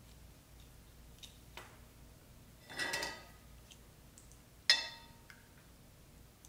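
Small metal parts on a wire clinking against a glass jar as they are lowered in: a short cluster of ringing clinks about three seconds in, then one sharp, ringing clink near five seconds, the loudest.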